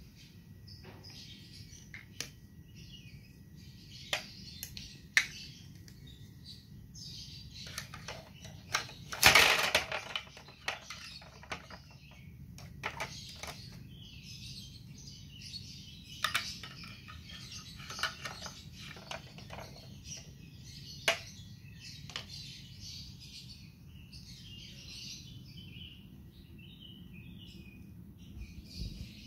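Birds chirping continually in the background. Plastic toy pieces click and clatter as they are handled, with the loudest clatter about a third of the way through.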